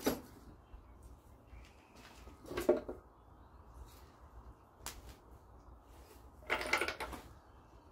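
Metal knocks and clanks as the valve cover is lifted off a Dodge 5.9 Magnum V8 on an engine stand and handled: one clank about a third of the way in, a small click, then a short clatter of several knocks near the end.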